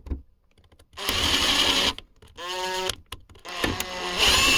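Electric drill running in three short bursts, drilling a hole; in the middle burst its motor whine rises in pitch as it spins up.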